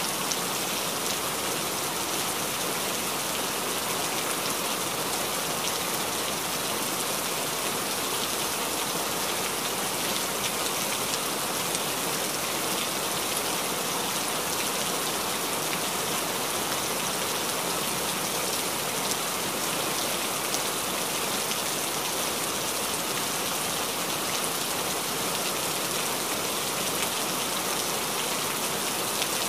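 Steady, even hiss of noise like falling rain.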